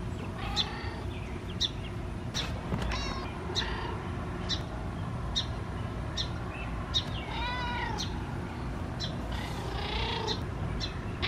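Domestic cat meowing a few times. The clearest calls come about seven and a half seconds in and near the end. Short high bird chirps repeat about once a second behind it.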